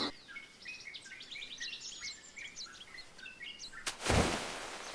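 Faint, rapid bird chirping and twittering. About four seconds in, a sharp click is followed by a short rushing hiss.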